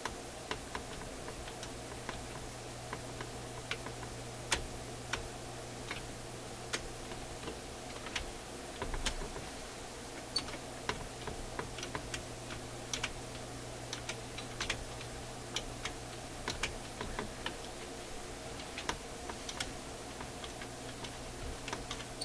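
Irregular light clicks and taps of the record player's small steel changer levers and linkage as they are prodded with a pick and pushed by hand, over a steady low hum.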